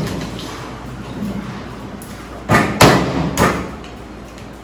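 Three sharp knocks of cookware being handled, about two and a half to three and a half seconds in, each with a short ringing tail.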